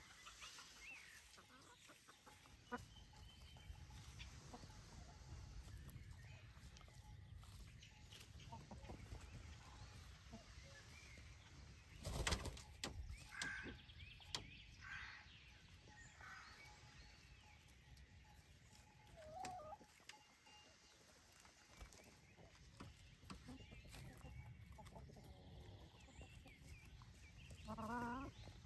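A flock of chickens foraging, with hens clucking faintly and now and then, mostly in a short cluster about halfway through and again near the end. A brief thump about twelve seconds in is the loudest sound, over a faint low rumble.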